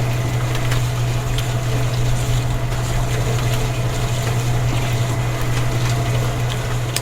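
A small motor running steadily, with a strong, even low hum under a noisy whirring.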